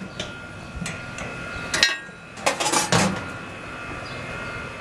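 Stainless-steel lid of a Charmglow gas grill being lowered and shut: a few metallic clanks, the loudest clatter about two and a half seconds in, over a faint steady tone.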